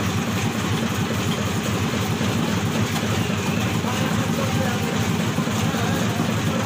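A heavy engine running steadily at an even pace, deep and unchanging.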